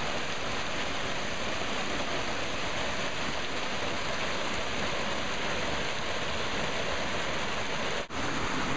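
Waterfall rushing: a steady, even noise of falling water that drops out briefly near the end.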